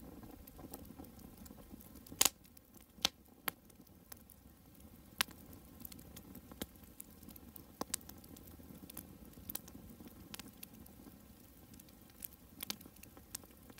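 Campfire burning faintly, the wood giving off scattered sharp pops a second or two apart over a low steady hiss.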